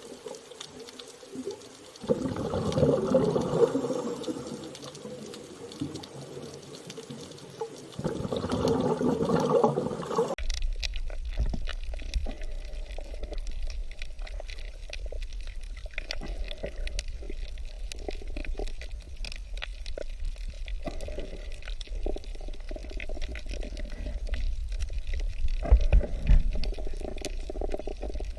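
Water heard underwater: bubbling and sloshing in two bursts, then, from about ten seconds in, a steady low rumble with scattered clicks.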